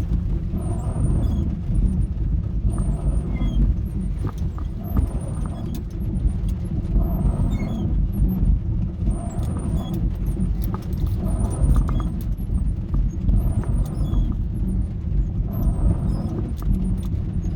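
Dodge A108 van's engine and drivetrain running at driving speed, a steady low rumble heard from inside the cab. A faint squeak comes back about every two seconds.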